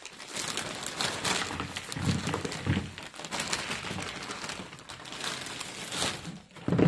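Plastic bag of potting soil crinkling and rustling as soil is poured from it into a plastic flowerpot.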